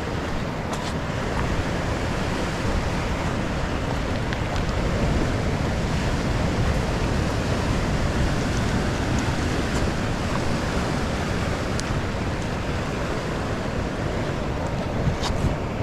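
Big waves breaking on a beach: a steady, loud rush of surf.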